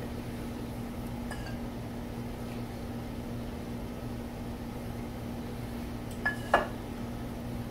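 Ladle scooping enchilada sauce in a glass mixing bowl, with a faint click about a second in and two sharp, ringing clinks of the ladle against the glass near the end, over a steady low hum.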